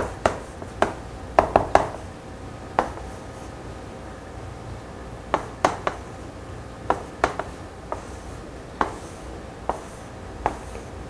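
Chalk on a blackboard: sharp, irregular taps and short strokes as characters are written and circled, coming in small clusters with pauses between.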